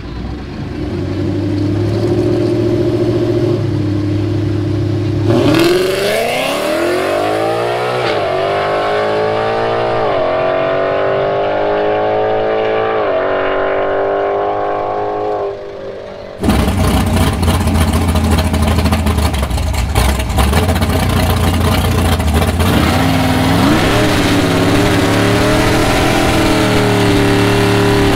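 Ford Mustang GT's V8 running at the start line, then launching down the drag strip, the revs climbing and dropping back with three upshifts as it pulls away. After a cut, a second drag car's engine runs loud and close, with one brief rev about two-thirds of the way through.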